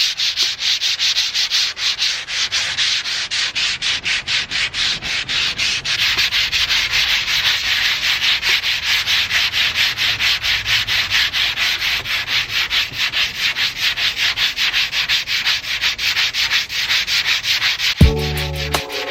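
Sandpaper rubbing on the painted body panels of a Toyota MR2 in quick, even back-and-forth strokes, about four to five a second. Background music with a heavy bass comes in about a second before the end.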